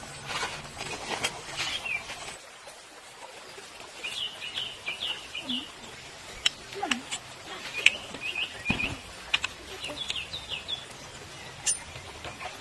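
Small bird chirping in quick runs of short, high notes, three bursts a few seconds apart, over scattered clicks and rustling.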